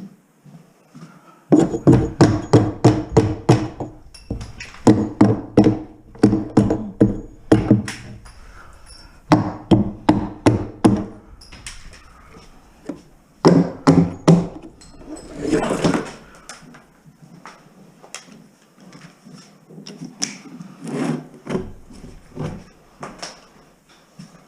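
Hard, rapid blows struck in bursts of about four or five a second, with short pauses between the bursts and a brief scraping rasp about two thirds of the way in, then quieter knocks.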